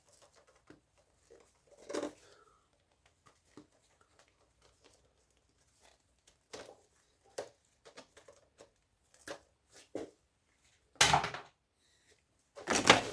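Scattered clicks, knocks and rattles of circuit boards and metal parts being handled and pulled apart while electronics are dismantled for scrap, with two louder clattering bursts near the end.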